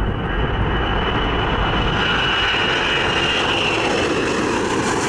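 Ilyushin Il-96 jet airliner's four turbofan engines at takeoff thrust as it lifts off and climbs: a steady, loud roar with a high whine that grows stronger midway.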